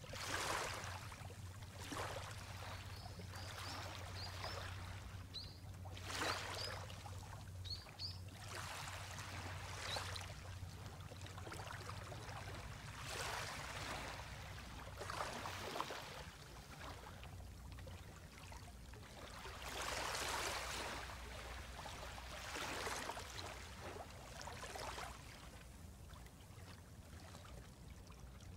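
Small waves lapping gently on a shallow sand and pebble shore of a calm sea, each soft wash swelling and fading every couple of seconds.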